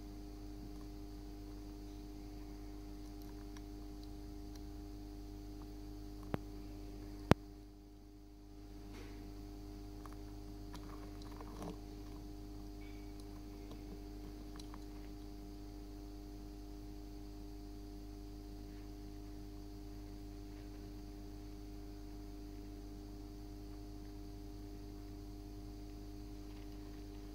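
Steady electrical hum with a faint low rumble, broken by two sharp clicks about six and seven seconds in.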